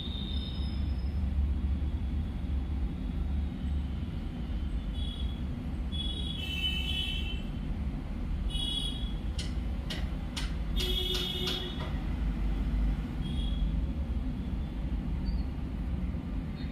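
Steady low background rumble, with a few short high chirps and a handful of sharp clicks about ten seconds in.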